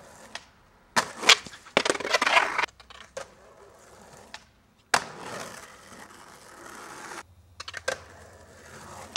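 Skateboard on a concrete ledge: sharp pops and clacks of the board striking the concrete, with stretches of wheels rolling and scraping across it, in several short bursts that break off abruptly.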